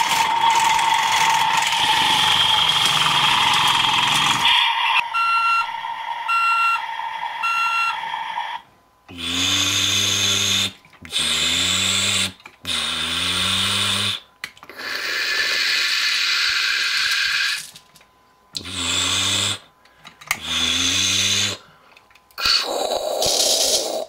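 Electronic sound effects from a toy CAT backhoe loader's small speaker: a buzzy engine sound, then three short beeps, then a series of separate bursts, each a second or two long with a wavering pitch.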